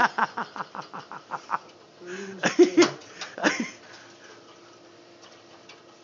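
A man laughing: a quick run of short 'ha' pulses that fades out over the first second and a half. A second short burst of voice comes about two seconds in, then only faint background.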